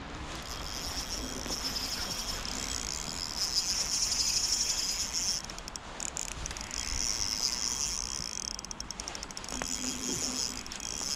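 Ultralight spinning reel being cranked close by, giving a steady high-pitched whirr. The whirr breaks up about five and a half seconds in, then runs on as the rod bends under load.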